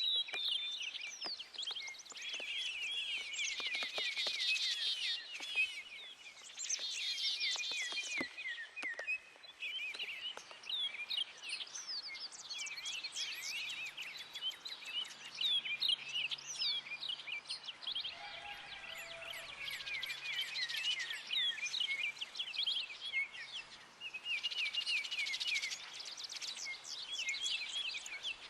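Backyard songbirds chirping and twittering in dense, overlapping waves with short lulls between them, over the steady sound of rain.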